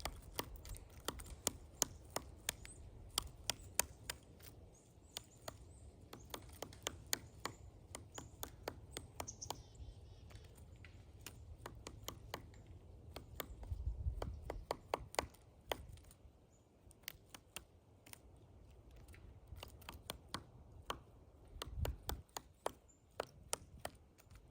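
Pileated woodpecker excavating a pine tree: an irregular run of sharp knocks as its bill chisels into the wood. A low rumble swells twice, about midway and near the end.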